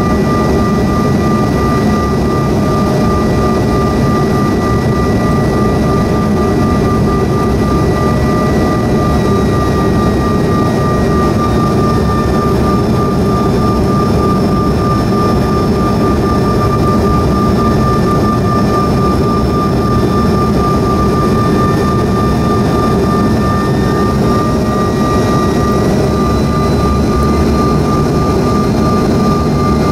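Steady cabin noise of a CRJ-700 jet descending on approach: the whine of its rear-mounted GE CF34 turbofans over a loud rush of air, with one high tone held steady. A second, higher tone slips slightly lower about ten seconds in.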